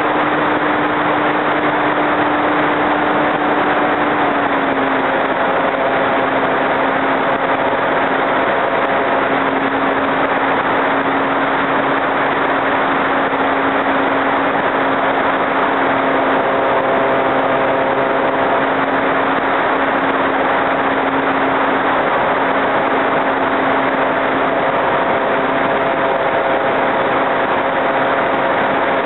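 Motor and propeller of an RC Su-29 model plane, heard from its onboard camera as a steady hum over a loud rush of air. The pitch dips slightly about four seconds in and then holds.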